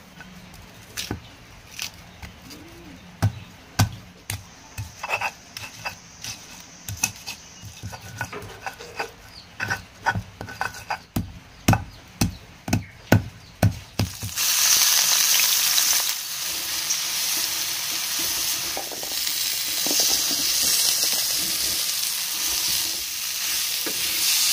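Stone pestle pounding and grinding chilies, shallots and garlic in a stone mortar, with a sharp knock every second or so that comes quicker toward the end. About 14 seconds in it gives way to loud sizzling as the spiced meat is stir-fried in a steel wok with a wooden spatula.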